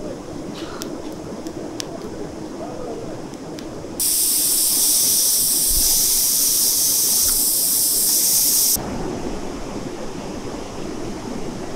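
Pressure cooker venting steam through its valve, pushed open with forks: a loud hiss, with a faint whistle in it, that starts suddenly about four seconds in and cuts off nearly five seconds later as the built-up pressure is released. Before it, a wood fire crackles faintly over the steady rush of a river.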